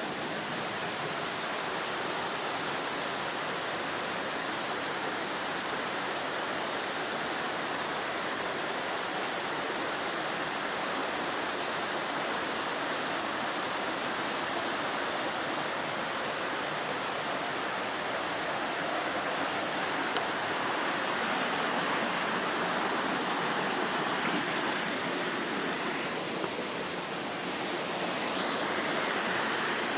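Waterfall rushing steadily: a dense, unbroken roar of falling water, swelling a little about two thirds of the way through.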